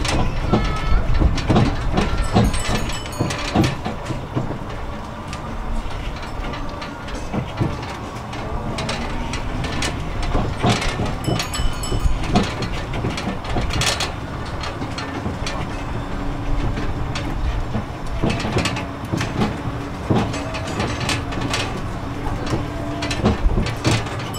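Riding aboard a DOTTO road train: the wagons rattle and knock continuously as they roll along, with a low steady hum coming in during the second half.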